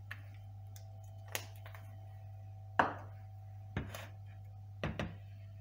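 A few short knocks and clunks of a ceramic baking dish and other kitchen items being handled and set down on a counter, the loudest about three seconds in, over a steady low hum.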